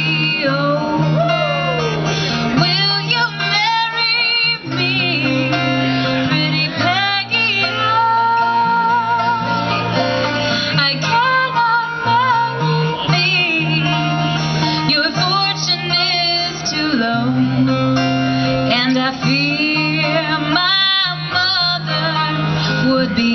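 Live bluegrass from a women's string trio: acoustic guitar and banjo playing, with women's voices singing over a steady low bass line.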